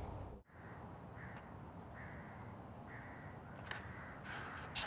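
Faint outdoor background with a bird calling several times, short calls about a second apart.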